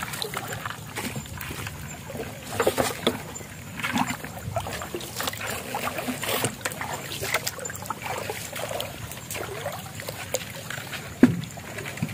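Irregular sloshing and splashing of someone wading through shallow water and soft mangrove mud, with a string of uneven watery strokes.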